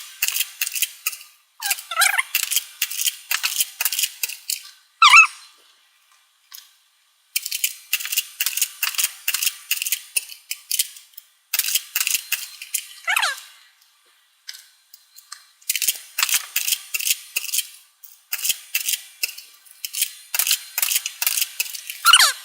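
Nerf Maverick pistol blaster being primed and fired over and over, in quick runs of sharp clicks and rattles. A few short falling squeaks come in between.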